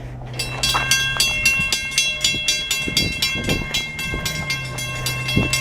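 Approaching freight train's locomotive horn holding a long, steady chord. Alongside it a rapid, evenly spaced ringing starts about half a second in.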